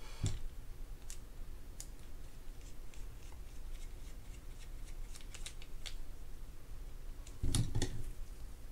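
Scattered light clicks and ticks of small hand tools against the plastic rotor and small parts of a spinning fishing reel, as a part is seated with a screwdriver. A louder cluster of handling knocks comes near the end.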